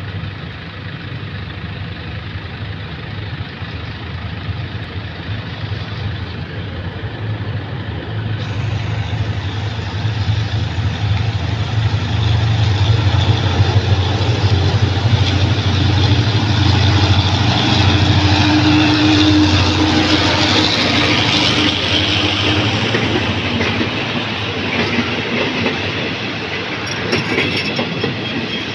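Diesel locomotive of an express passenger train approaching, its low engine hum growing steadily louder as it nears, then the carriages passing with wheels clicking over the rails near the end.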